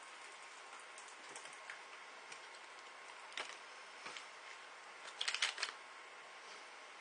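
Popping candy crackling in a mouth: scattered small pops, with a quick cluster of louder crackles about five seconds in.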